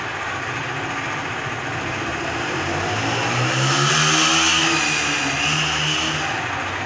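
Motorcycle engine passing close by, growing louder to a peak about four seconds in and then fading. It plays over a steady background of street traffic.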